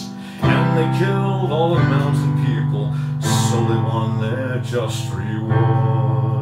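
Electronic keyboard playing held chords that change every second or two, with a man's voice singing over them.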